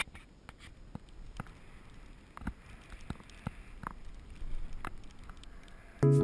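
Irregular light clicks, taps and scrapes of a small action camera being handled and moved about. Background music with a strong beat cuts in right at the end.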